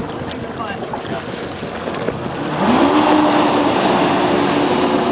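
Wind and water for the first couple of seconds, then a jet ski's engine revs up as it accelerates away. Its pitch climbs quickly and then holds steady at speed, over the splash of its wake.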